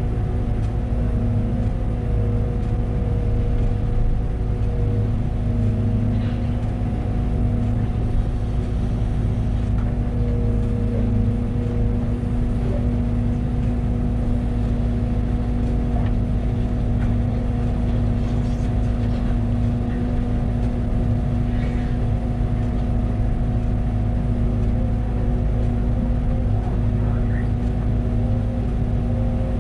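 Liebherr 914 Compact wheeled excavator's diesel engine running at a steady speed, an even hum with no revving, with a few faint clicks over it.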